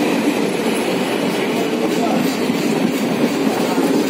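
Indian Railways passenger coaches running past along the platform: a steady noise of wheels on the rails.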